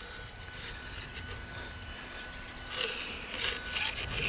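Round file with the Husqvarna file-guide kit being stroked across a chainsaw chain cutter, sharpening its dull front corner. Two file strokes come about three-quarters of the way in, after a quiet start.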